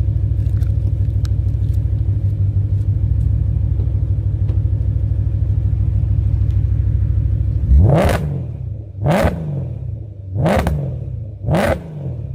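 BMW E92 M3's S65 V8 with Becker OBX headers and a full exhaust, heard from outside the car: a steady idle, then four quick throttle blips near the end, each rev climbing sharply and dropping back.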